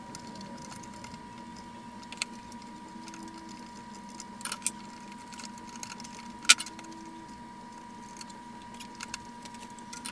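Light metallic clicks and taps of small tools and wire against a tube radio chassis during rewiring, a handful of them, the sharpest about two-thirds of the way through. Under them runs a steady hum with a faint steady high tone.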